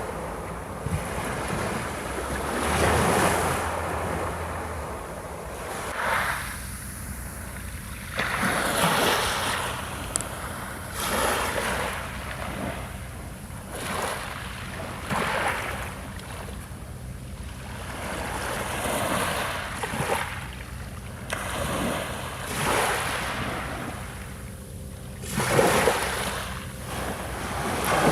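Ocean waves breaking and washing onto a sandy beach, the surf swelling and falling back every two to three seconds.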